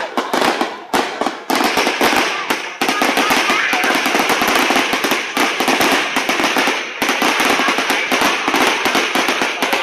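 Fireworks crackling: a dense, continuous run of rapid sharp pops and bangs.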